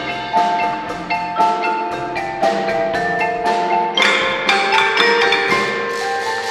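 Percussion ensemble playing, with mallet instruments such as marimba, xylophone and bells striking a quick run of ringing notes. The music gets brighter and fuller about four seconds in.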